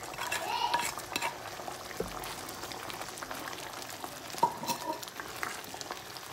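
A spoon scrapes and clinks against a plate, then stirs in a pan, over the steady hiss of thick curry gravy simmering at the boil. The clinks and scrapes come in clusters near the start and again about four and a half seconds in.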